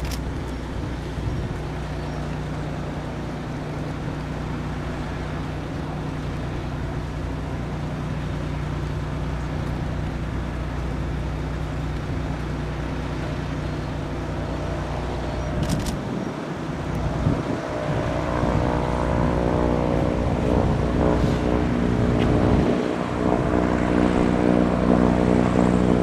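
Piper PA-46-350P Malibu Mirage's turbocharged Lycoming six-cylinder piston engine and propeller running at taxi power: a steady drone. In the second half it grows louder and fuller in tone as the aircraft taxis toward the microphone.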